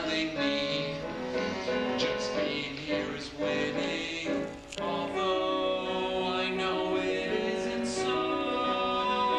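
A musical-theatre song sung by several voices together. The melody moves in short phrases at first, then the voices settle into long held notes about halfway through.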